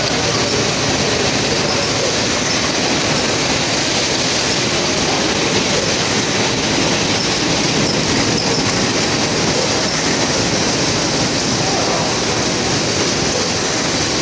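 Automatic cup-wrapping packaging machine running at speed: a steady, dense mechanical clatter from its moving parts.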